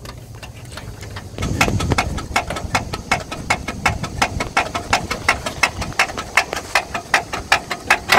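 Diesel 4WD engine cranking on the starter motor, an even chug of about five beats a second that begins about a second and a half in and has not yet caught. The fuel system has just been hand-primed after the fuel pickup was starved of fuel on a steep slope.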